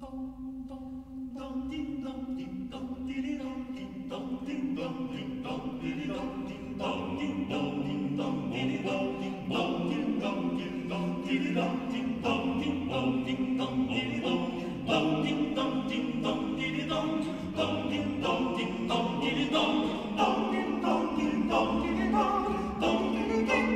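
Nine-man male vocal ensemble singing a Russian Christmas carol a cappella in close harmony over a held low note, the sound growing fuller and louder as it goes.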